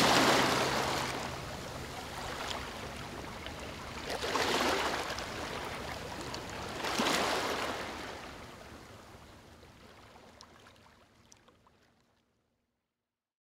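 Sea waves washing in, three swells a few seconds apart, fading out to silence near the end. The last acoustic guitar note dies away in the first couple of seconds.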